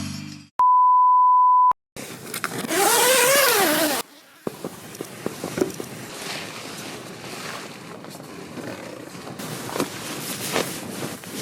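A steady, single-pitched beep lasting about a second, then a loud pitched cry for about two seconds whose pitch wavers up and down, then a quiet outdoor background with light clicks and knocks.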